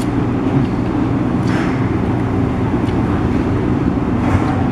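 A steady low mechanical hum fills the background, with a brief swell of hiss about a second and a half in and again near the end.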